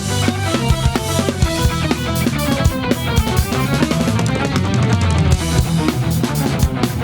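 Drum kit played live, with bass drum and snare hits, along with a rock backing track that carries guitar.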